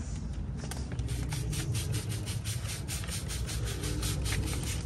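Quick rubbing and scraping of hands on a vinyl stripe decal and its paper backing against a truck's cab door, a fast even run of scratchy strokes, about six a second.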